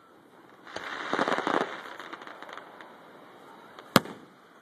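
Aerial fireworks: a dense burst of crackling from crackle stars lasts about a second, then thins out. Near the end a single sharp bang comes from a bursting shell.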